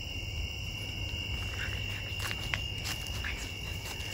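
Night insects trilling steadily on one high pitch. A few faint clicks and rustles come in from about halfway.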